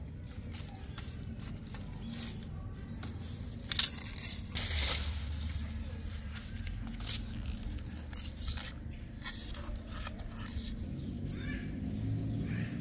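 Dry palm fronds and leaf litter rustling and crackling, with scattered small crackles and one sharp, louder crack about four seconds in, over a low steady rumble.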